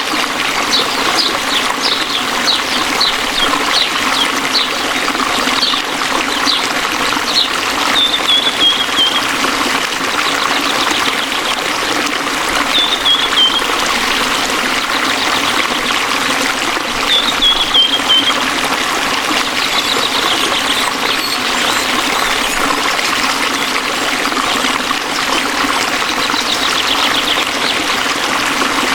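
Waterfall rushing steadily with birds singing over it: a run of short high chirps, then brief falling trilled phrases that recur every few seconds, and rapid trills later on.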